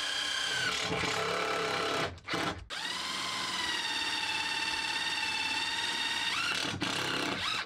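Ridgid cordless driver's motor whining as it drives terminal screws into a bus bar. It runs in spells with short breaks, the longest a steady whine of several seconds whose pitch jumps up shortly before it stops.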